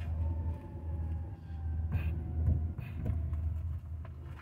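Low, uneven rumble of a motor vehicle, with a faint tone falling slowly in pitch and a few light clicks around the middle.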